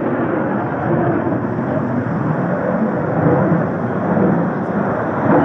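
Steady rumbling aircraft engine noise at an airshow, with no distinct events.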